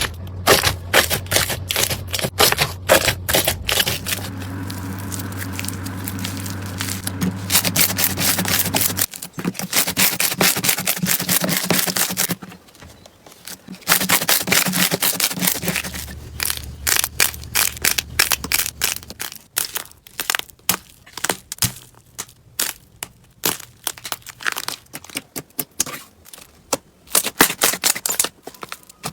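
Slime being squeezed and pressed by hand, giving rapid crackling and popping clicks. The clicks come thick and fast at first and grow sparser in the last third.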